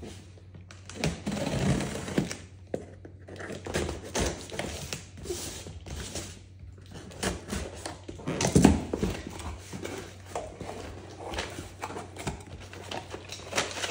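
Cardboard shipping box being handled and cut open with scissors: the tape slit, the flaps pulled open and paper rustling, with scattered knocks and thunks of the box. The loudest thump comes about eight and a half seconds in.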